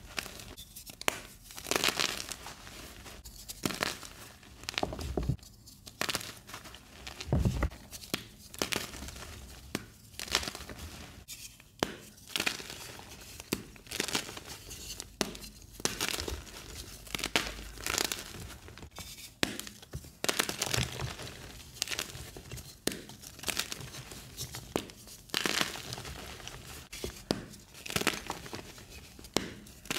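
Hands squeezing and crumbling soft blocks of gym chalk into powder: an irregular run of crunches, roughly one or two a second.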